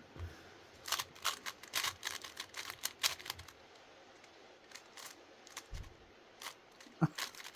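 GAN i Carry 4 smart speedcube being turned by hand, its layers clicking in quick irregular bursts as it is scrambled, with a quieter pause midway.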